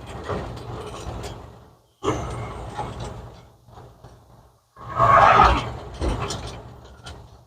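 1950 Ford F1's flathead V8 running at low speed, heard in three short sections that cut off abruptly, with a louder burst of mechanical noise about five seconds in.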